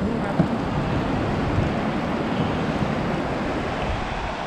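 Steady rush of river whitewater pouring over a concrete weir, with one light knock about half a second in.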